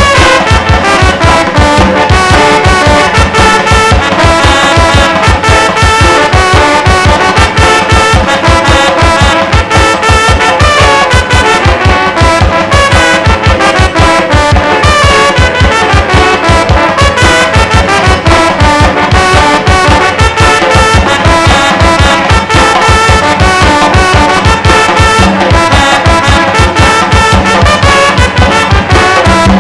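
Tamborazo brass band playing live: trumpets and trombones carrying the tune over a steady beat of the tambora bass drum.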